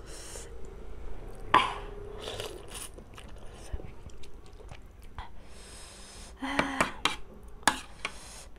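Close-miked eating: a woman chewing instant noodles and momo, with scattered sharp clicks and taps of a spoon and fork against steel and ceramic plates. There is one loud click about a second and a half in, and a cluster of clicks around six and a half to seven seconds.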